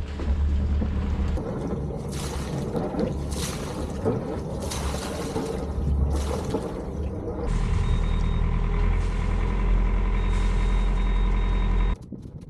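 Sailboat's inboard engine running during a slow docking approach, with wind gusting across the microphone. About halfway through the engine note becomes louder and steadier, with a faint high steady tone over it, and the sound cuts off abruptly near the end.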